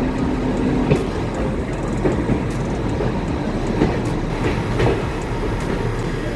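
A moving passenger train heard from on board: a steady rumble of wheels on the rails with scattered irregular clanks and knocks from the wheels and couplings.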